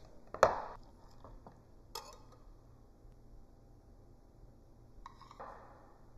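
A ceramic platter set down on a countertop with one sharp clatter about half a second in, then a fork and spoon clinking lightly on china plates twice, with a quiet room between.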